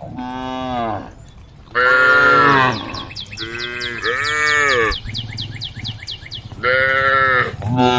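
Cattle mooing, about six calls in a row, each rising and then falling in pitch. A rapid high-pitched chirping runs beneath the calls through the middle.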